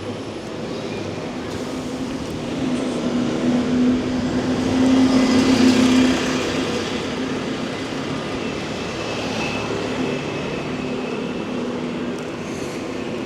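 A motor vehicle passing close by over steady street noise: its engine hum swells to a peak about halfway through, then fades away.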